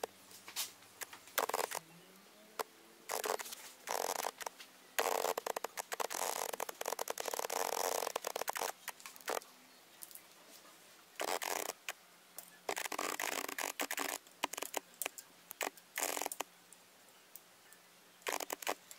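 Handling noise from assembling a laser engraver: braided cables, plastic connectors and cable clips rustle, scrape and click as they are fitted to the stepper motor and laser module. It comes in irregular short bursts, with a longer stretch of rustling about five to nine seconds in.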